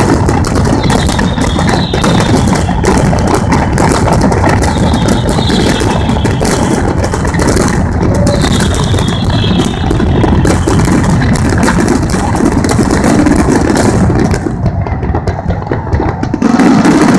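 Fireworks display at full barrage: many shell bursts and crackles going off so close together that they run into one continuous din. The barrage thins out briefly near the end.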